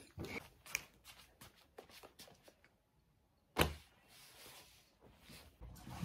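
Light clicks and rustles of a phone camera being handled and set down, then a single sharp knock about three and a half seconds in.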